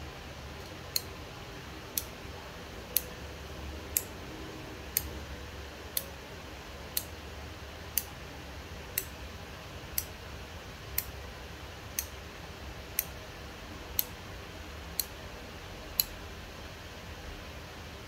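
Relays on a 16-channel relay module switching on one after another: sixteen sharp clicks, one each second.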